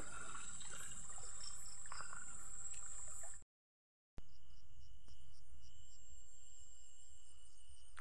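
Night insects, crickets, trilling steadily in a high chorus. The sound cuts out completely for under a second a little before the middle, then comes back as a different insect chorus: a rapid pulsing call over a steady high tone.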